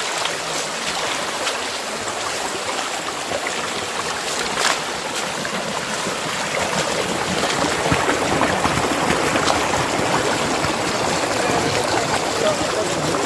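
Rocky stream water rushing and trickling steadily, growing a little louder in the second half, with a few brief knocks.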